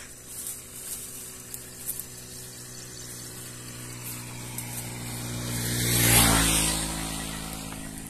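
A motor vehicle passing by: its engine hum grows louder over several seconds, peaks about six seconds in, then fades as its pitch drops.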